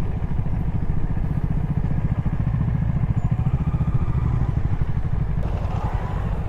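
Motorcycle engine running steadily while riding, with a little clatter over a rough dirt track.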